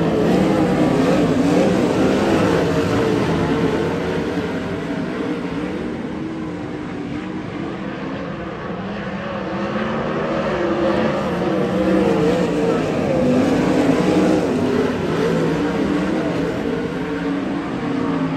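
A field of sprint cars racing around a dirt oval, several V8 engines running together with pitch rising and falling through the turns. The sound swells as the pack comes by near the start and again about twelve seconds in, and dips in between.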